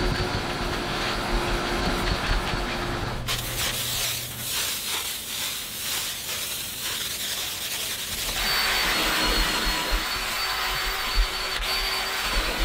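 A vacuum nozzle runs over a cloth car seat cushion. About three seconds in it cuts to the hiss of cleaner being sprayed onto the fabric. From about eight seconds a cordless drill with a scrub brush scrubs the upholstery, its motor giving a steady high whine.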